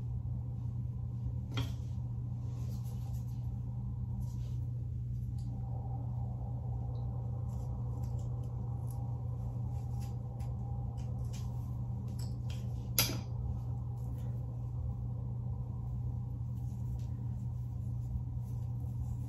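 Steady low hum with faint rustling and scattered soft clicks as hands separate and pull strands of synthetic crochet braiding hair, with two sharper clicks, one about one and a half seconds in and one about halfway through.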